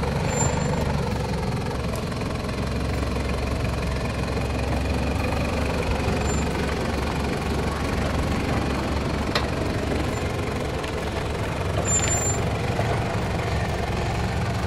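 Toyota Land Cruiser Prado 90's engine running steadily at low revs as the 4WD crawls over rough, rutted ground. A couple of sharp clicks or knocks stand out about nine and twelve seconds in.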